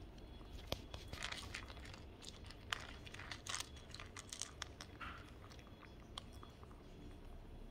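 A small dog chewing dry kibble from a bowl: irregular crisp crunches as the pellets break between its teeth.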